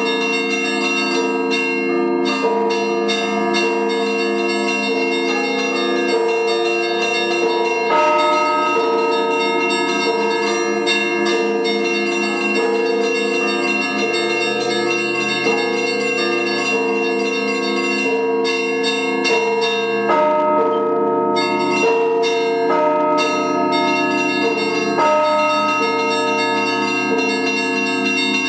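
Russian Orthodox church bells rung continuously by a single bell ringer: quick, dense strokes of the smaller bells over long-ringing tones of the larger bells, whose notes shift every second or two. It is a partly improvised peal.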